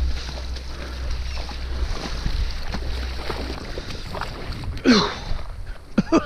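Wind buffeting the microphone as a low rumble over a steady wash of water noise; the rumble drops away a little past halfway. About five seconds in, a short loud sliding sound falls sharply in pitch.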